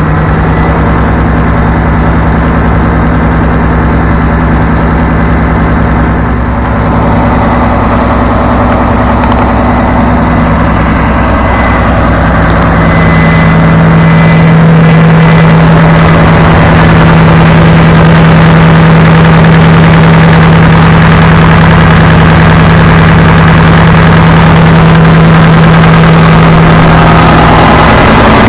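Caterpillar 3412 V12 diesel engine on a 550 kW generator set running steadily, freshly started after years of sitting. The sound grows louder about halfway through and then holds steady.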